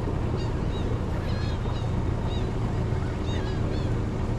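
Many birds giving short, rapidly repeated chirping calls over a steady low rumble.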